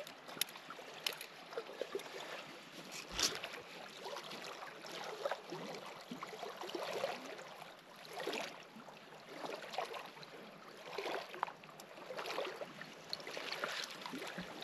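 Lake water lapping against the shore in irregular soft swells, with a single knock about three seconds in.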